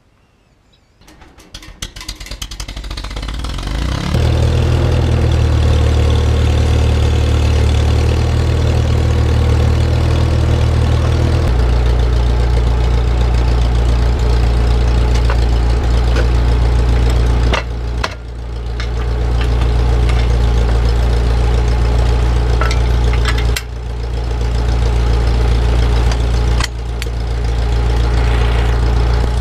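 Farmall Super MTA tractor's four-cylinder engine being cranked over for a few seconds, catching about four seconds in, then running steadily. Its note drops lower about midway, and it dips briefly three times.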